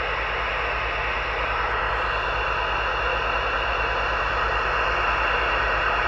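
CB radio carrying a steady, loud rushing hiss and no voice: an open, keyed-up transmission that comes on abruptly just before and holds unchanged.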